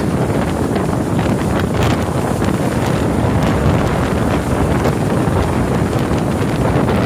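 Strong gusting wind buffeting the microphone, a loud low rumble that swells and eases without letting up.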